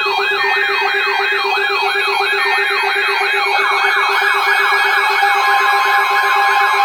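Emergency alert attention signal that sounds like an electronic siren: a rapid falling yelp repeating about three times a second over a steady low tone, with a second layer of sweeps joining about halfway through. It is the alarm that opens the severe thunderstorm warning.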